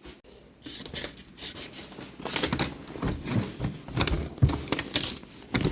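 Handling noise: rustling and irregular soft knocks and thumps, growing busier about halfway in.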